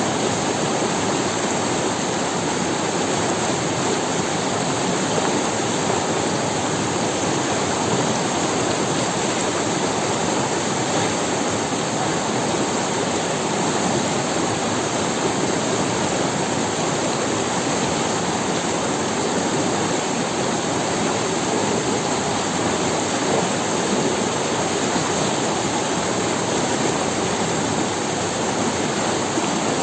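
River water running steadily over stones.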